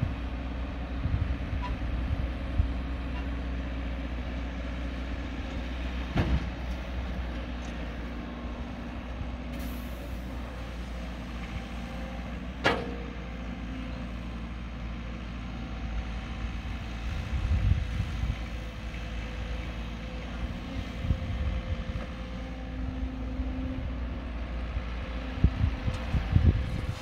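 Caterpillar 312 hydraulic excavator's diesel engine running steadily while it digs and loads earth, heard from a distance. A sharp metallic clank about halfway through, and low thumps near the end as the bucket empties earth into the dump truck.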